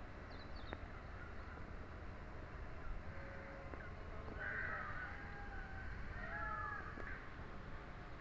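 Birds calling outdoors among trees, a few harsh calls in the second half, over a steady low rumble.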